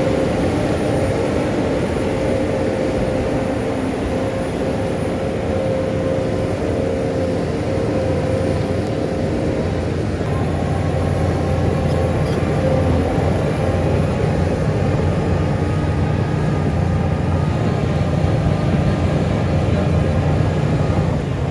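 Heavy diesel engine of earth-moving machinery running steadily, with a held whine on top that fades in and out.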